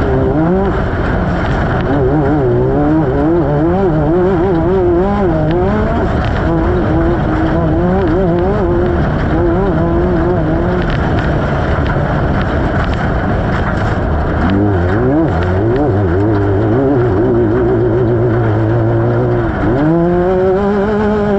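Off-road race vehicle's engine heard onboard at speed over rough desert ground, revs rising and falling rapidly, over a constant clatter of knocks and rattles. Near the end the revs dip briefly, then climb and hold steady at a high pitch.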